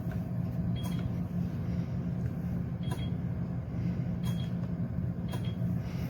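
A steady low motor hum with about five sharp clicks spread through it, some with a short high beep-like tone.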